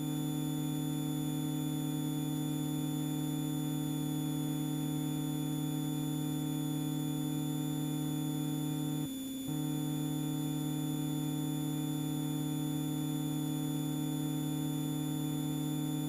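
Steady hum in the aircraft's intercom audio feed: several fixed tones held without change, with a brief dip about nine seconds in.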